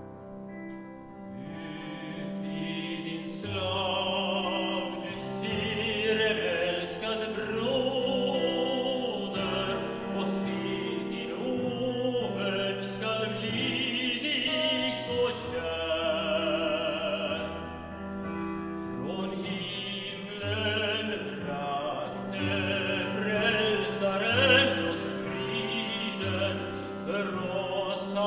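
A solo male voice singing in a classical style with vibrato, over a keyboard accompaniment of held chords and moving bass notes.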